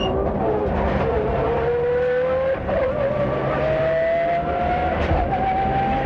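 Rally car engine heard from inside the cabin, pulling hard with the revs climbing steadily, broken by a brief dip about two and a half seconds in that is typical of an upshift.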